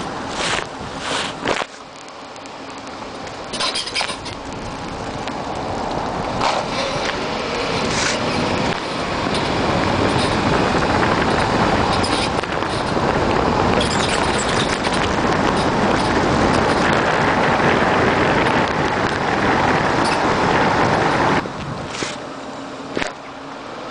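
A 2007 Lincoln MKZ AWD driving along with steady road and tyre noise that builds up, then falls away near the end as the car slows to a stop. Several short sharp creaks or knocks stand out over it, the squeaky, creaky noise from the front passenger-side suspension over bumps that came from a worn control arm and spindle.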